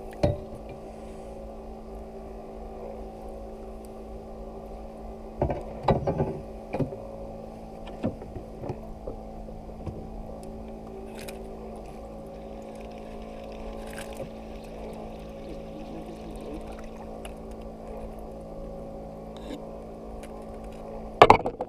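A boat's motor running steadily, a constant low hum, with a few short knocks and clicks from handling the fish and gear over the gunwale.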